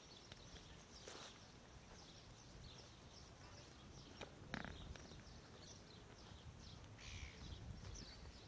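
Near silence: faint outdoor ambience with birds chirping softly throughout, and a single brief thump about halfway through.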